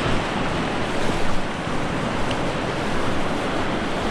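Whitewater river rapids rushing steadily, an even noise with no let-up.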